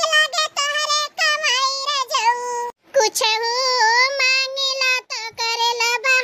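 High-pitched, sped-up cartoon character voices talking fast, with a brief break about three seconds in.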